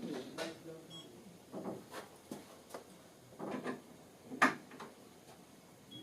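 Scattered light clicks and knocks, with a faint short beep about a second in and one sharper knock a little past four seconds, the loudest.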